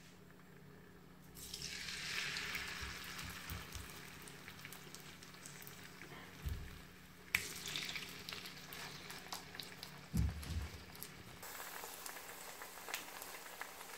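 Sea bass fillets frying in olive oil in a non-stick pan, a steady sizzle that swells about a second and a half in, again about seven seconds in and again near eleven seconds as more fillets go into the oil. Two dull knocks come midway.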